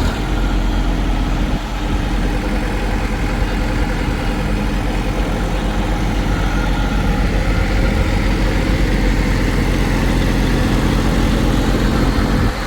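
Diesel engine of heavy farm or earthmoving machinery running steadily near idle, close by.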